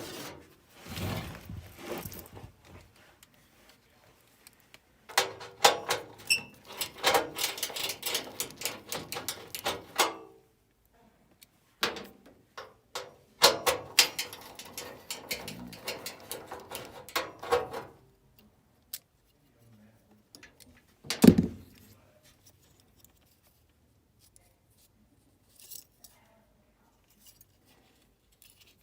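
Metal parts and hand tools clinking and rattling in two bouts of several seconds each, then one sharp knock, as the high limit switch is taken out of a gas furnace.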